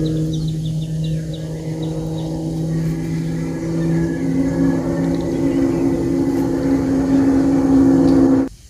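A motor engine running steadily, with a shift in pitch about four seconds in; it stops abruptly shortly before the end.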